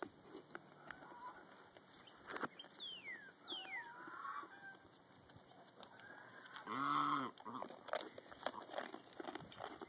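Farmyard animals calling: two short calls falling in pitch about three seconds in, then a louder, brief pitched call near seven seconds, with scattered clicks and rustles of the animals close by.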